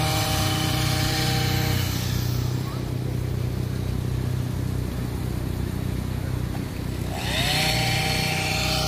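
Petrol string trimmer revving up, easing back to a lower running note, then revving up again about seven seconds in, over a steady low rumble.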